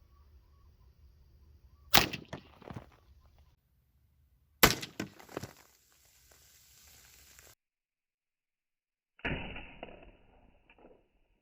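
.22 Long Rifle rifle shots fired into a row of soda cans: two sharp cracks about two and a half seconds apart, each followed by a brief clatter, then a third, duller crack after a sudden cut near the end.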